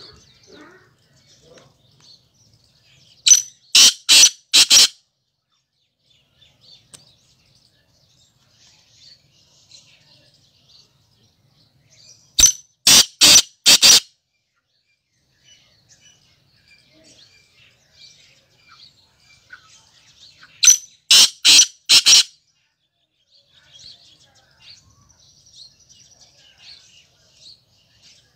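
Caged male black francolin (Sindhi kala tetar) giving its harsh, grating call: a quick run of about five loud notes lasting about a second and a half, repeated three times roughly eight seconds apart.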